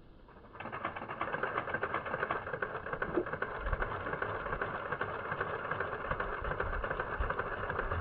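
Steady, grainy, rattling background noise that starts about half a second in and holds level, with no distinct splash or bird call standing out from it.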